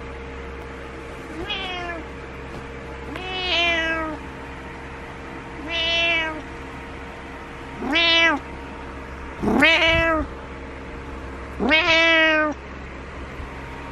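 Orange-and-white domestic cat meowing insistently: six drawn-out meows about two seconds apart, the first softer and the rest louder, each rising and falling in pitch. The cat is demanding that its owner get up.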